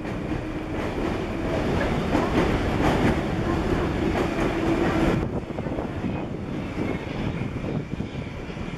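Moscow metro train running along an open-air platform: wheel and rail rumble with a steady hum. The noise drops sharply about five seconds in.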